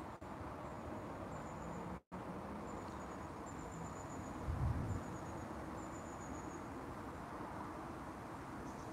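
Outdoor lakeside ambience with a steady rush of wind on the microphone, and an insect chirping in short, high, repeated trills. A low thump comes about halfway through, and the sound drops out for an instant about two seconds in.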